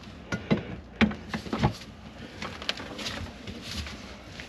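Scattered light knocks and clicks at irregular intervals, from tools and sink drain fittings being handled during work on a plugged kitchen sink drain.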